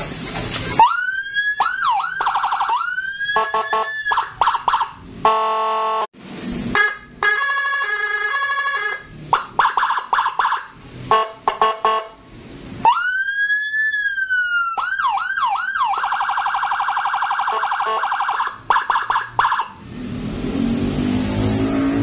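60-watt custom Whelen HHS-style police-escort siren sounding through a horn speaker, switched through several of its tones in turn: a rising and falling wail, fast yelps, steady warbling tones and a horn-like blast, with short breaks between. Near the end the siren stops and a noisier sound with low steady tones takes over.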